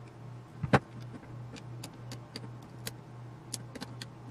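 Light metallic clicks and taps from handling a small metal gear-and-motor assembly and turning a screwdriver in its screws, with one sharp knock about three-quarters of a second in. A steady low hum runs underneath.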